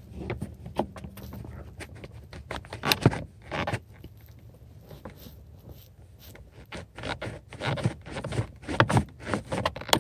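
Flathead screwdriver scraping and clicking against a pedal's retaining clip while prying it off. A run of short scrapes and clicks, busier in the last few seconds.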